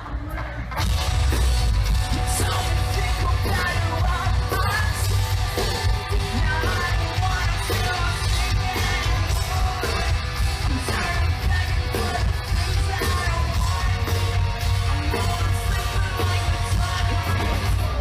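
Loud live music at a concert with a singer, heavy bass and a steady beat.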